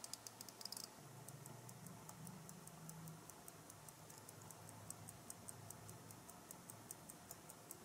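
The balance-wheel escapement of a 1960s Ruhla electric clock movement ticking faintly and evenly, about five ticks a second: the mechanism is running.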